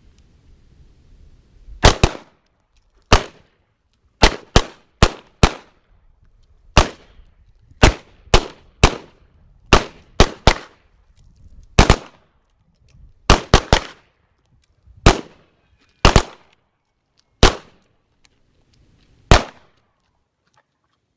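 Pistol shots from several shooters firing at an uneven pace, about twenty in all, each a sharp crack.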